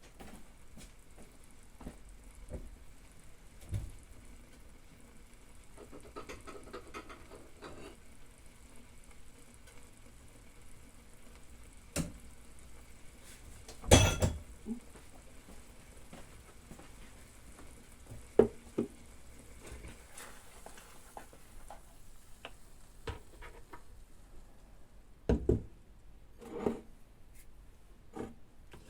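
Omelette cooking in a non-stick pan on an electric hob: a faint sizzle under scattered clicks and knocks of a utensil against the pan. A loud clatter of the pan about halfway through, and the sizzle dies away several seconds before the end.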